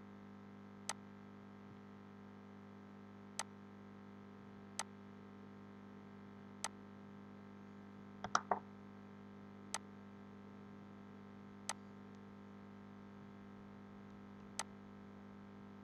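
Computer mouse clicking: single sharp clicks every second or two, with a quick run of two or three a little past the middle. A faint steady hum sits underneath.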